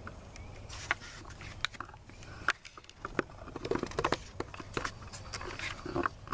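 Pages of a hardcover picture book being turned and the book handled: scattered soft clicks and paper rustles.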